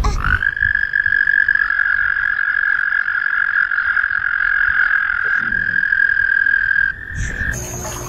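A toad calling: one long, steady, musical trill that lasts about seven seconds. It breaks off abruptly near the end, and a different call begins.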